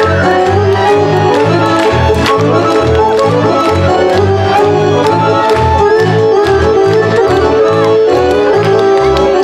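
Serbian folk dance music for a kolo from Šumadija, with a steady bouncing bass beat under a held, running melody.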